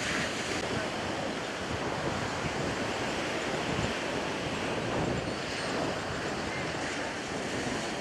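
Steady wash of surf on a beach, with wind buffeting the microphone.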